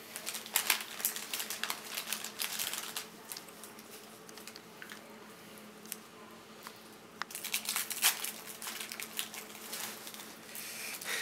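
Plastic wrappers crinkling and crackling in bursts as they are handled and folded by hand, with a faint steady hum underneath.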